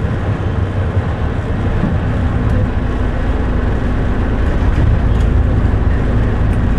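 Tour bus running at highway speed, heard from inside the cabin: a steady low rumble of engine and road noise.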